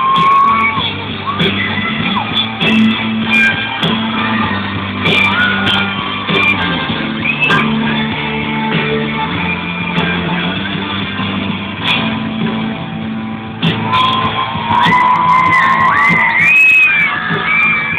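Live pop-rock band playing loud in a hall: electric guitar over a steady bass, with singing that rises near the end. The sound is dull and muffled, with no top end.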